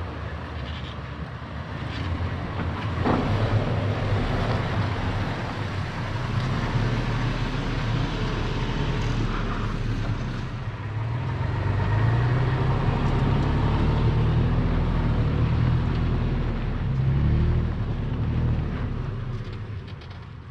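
Toyota FJ Cruiser's 4.0-litre V6 engine working at low speed as the truck crawls over sandstone, its revs rising and falling, with a steady haze of tyre and body noise.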